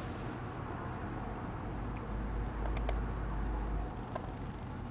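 Steady low room hum, with two faint clicks just past halfway and another near the end.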